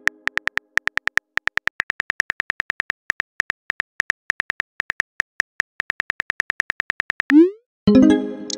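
Simulated phone-keyboard typing clicks, about five or six a second, as a text message is typed. Near the end comes a quick rising swoosh, then a short chiming tone that fades: the message-sent sound.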